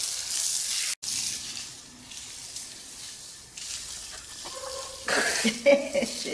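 Water spraying from a garden hose with a steady hiss while a dog snaps and splashes at the stream; it gets louder and busier near the end.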